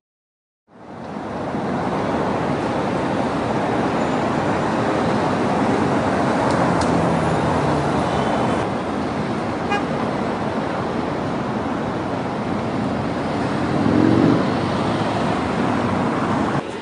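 Steady road traffic noise of cars and vans driving past, fading in after a brief silence.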